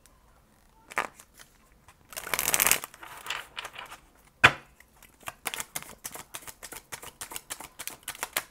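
Tarot cards being shuffled and handled by hand: a short rustling burst about two seconds in, a sharp snap of cards near the middle, then a quick run of card flicks, several a second.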